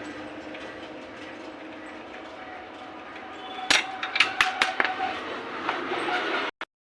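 Hand tools clinking and knocking on metal motorcycle engine parts: a run of sharp clinks and taps about four seconds in, over a steady hiss.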